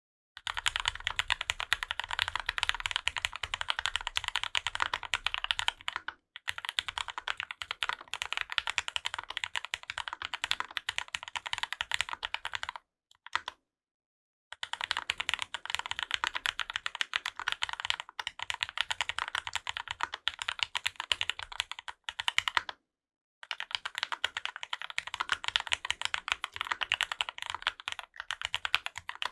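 Fast, continuous typing on a custom mechanical keyboard with Krytox-lubed linear Gateron Ink Black v2 switches, an aluminium plate and GMK keycaps. It comes in several long runs with short breaks between them.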